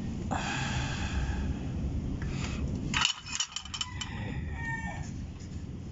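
A rooster crowing, one call starting just after the start and fainter calls after the middle. About three seconds in, a quick cluster of sharp clicks, the loudest moment.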